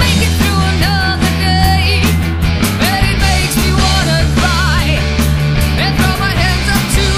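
Heavy metal band's demo recording: distorted electric guitars, bass and drums playing steadily, with a melodic lead line that bends and wavers above the chords.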